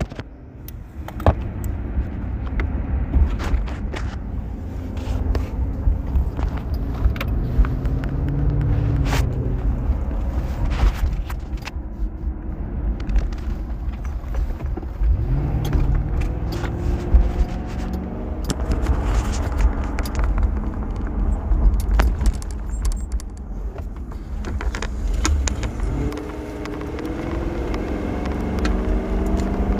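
Car heard from inside the cabin while driving: a steady low road and engine rumble, with the engine note rising a few times. Scattered light clicks and rattles come through over the top.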